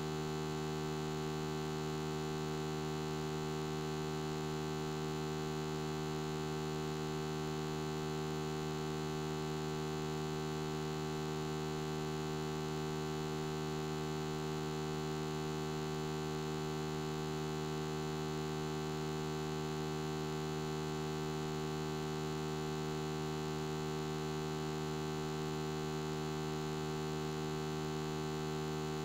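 Steady electrical hum with several overtones, unchanging throughout.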